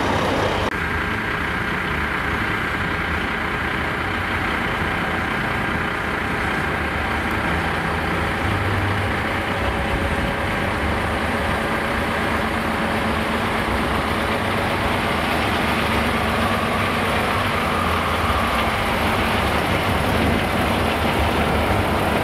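Heavy truck diesel engine running steadily at low revs, from a DAF tractor unit moving at walking pace close by.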